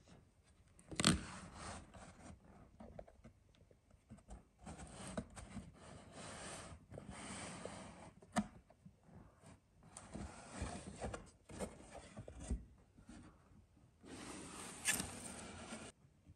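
Hands handling and opening a cardboard box: a sharp tap about a second in, then several stretches of cardboard and paper scraping and rustling, with scattered clicks.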